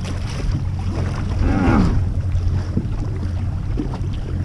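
A boat's motor running with a steady low hum, with wind buffeting the microphone and river water splashing. A short voice sound comes about one and a half seconds in.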